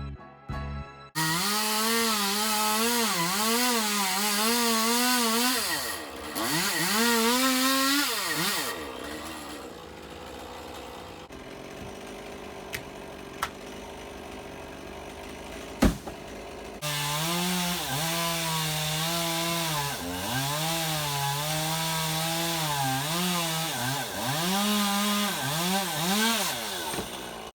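Chainsaw cutting into a ficus tree, its engine pitch rising and dipping as the chain bites into the wood. It drops quieter for several seconds midway, with a sharp knock, then runs loud and cuts again.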